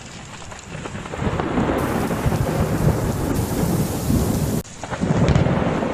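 Strong wind blowing hard across the microphone, a loud, rumbling rush of buffeting noise, breaking off suddenly about three quarters of the way in and then starting again.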